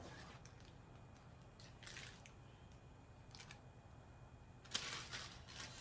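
Faint kitchen handling noises: a few soft ticks and rustles, then a short, louder rustle near the end.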